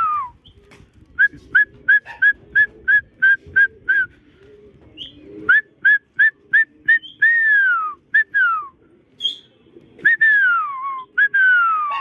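A man whistling to a flock of pigeons to drive them into the air. Quick runs of short, sharp whistles, about three a second, are broken by several long whistles that slide down in pitch.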